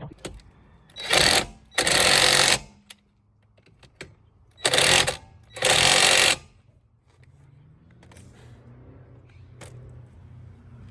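Impact wrench rattling in four short bursts, in two pairs about three seconds apart.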